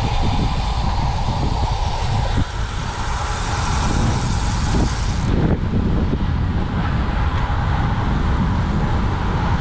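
Steady wind rush and road noise while riding a road bike at speed, with heavy rumble from the wind. About five seconds in, the high hiss cuts off abruptly.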